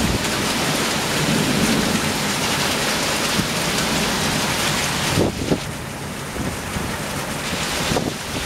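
Torrential rain pouring down on rooftops in a dense, steady hiss. It eases slightly about five seconds in, and a few brief low thumps come through after that.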